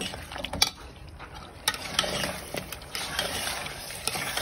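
A metal spoon stirring meat curry as it fries in an enamel pot, knocking and scraping against the pot a few times, the loudest knock just over half a second in. A frying sizzle grows from about two seconds in as the spiced meat is fried down.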